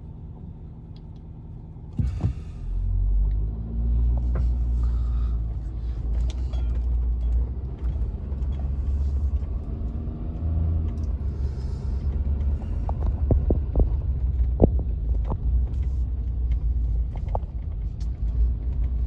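A car's engine and road rumble, low and steady, coming in suddenly about two seconds in, with a slowly wavering pitch and scattered light clicks and knocks.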